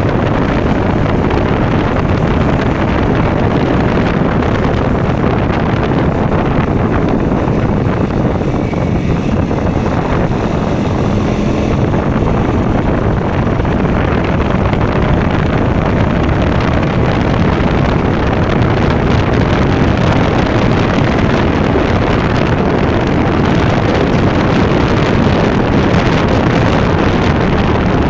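KTM Duke motorcycle engine running steadily while riding, mixed with wind noise on the microphone.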